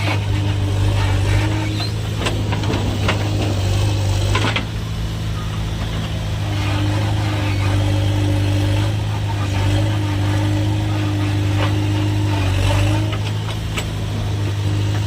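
Heavy machinery's diesel engine running steadily at constant speed, with a higher wavering whine that comes and goes and scattered light clicks and knocks.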